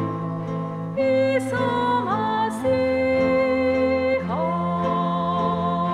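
Slow background music of long held notes, each sliding smoothly to a new pitch about a second in, around two seconds in and again just after four seconds.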